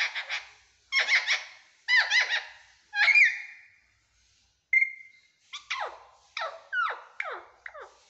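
Young green parakeet calling from its cage: bursts of short chattering calls, a brief pause about four seconds in, then a quick series of short falling squawks at about two a second.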